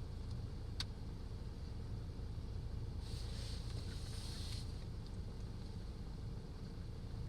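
Steady low rumble of a vehicle under way. There is a sharp click about a second in and a brief hiss around the middle.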